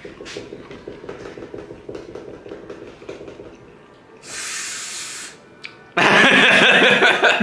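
A man's reactions to a disliked bite: a sharp hissing breath about four seconds in, then a loud burst of laughter about six seconds in.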